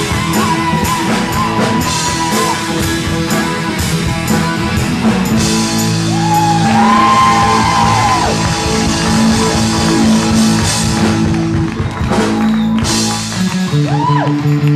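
Live rock band playing loud: electric guitar, bass and drum kit with cymbal crashes, and a singer holding long notes.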